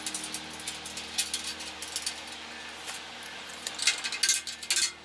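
Light metal clicks and clinks of hand work on a metal electrical switch box, with a screwdriver turning screws on it; the clicking grows louder and denser about four seconds in.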